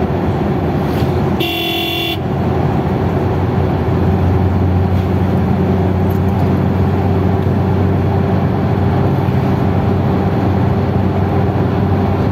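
Vehicle engine and road noise heard from inside the cabin while driving at speed, a steady hum that grows a little stronger about four seconds in. A vehicle horn sounds once, briefly, about a second and a half in.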